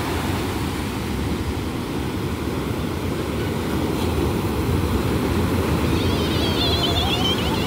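Sea surf breaking and washing up a sandy shore: a steady, low rush of waves. About six seconds in, a high, wavering whistle-like call sounds over it.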